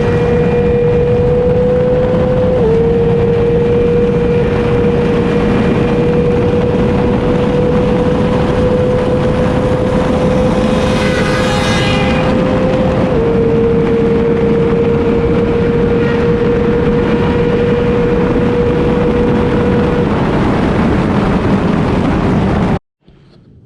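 Motorcycle riding at a steady cruise: a steady engine note with a loud rush of wind over the microphone. The note dips slightly twice and then creeps back up. The sound cuts off suddenly near the end.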